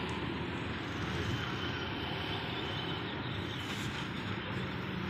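A steady engine rumble over continuous traffic noise.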